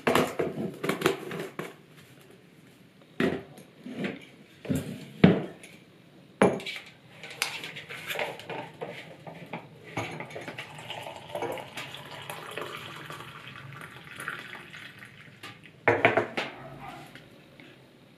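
A metal spoon clinking and scraping against a ceramic mug and jar, with sharp knocks as a jar lid and utensils are set down. In the middle, water is poured from a kettle into the mug, and near the end the spoon clatters again in the mug.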